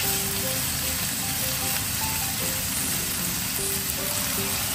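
Sliced pork and zucchini sizzling steadily in a frying pan as they are stir-fried, under soft background music of short melodic notes.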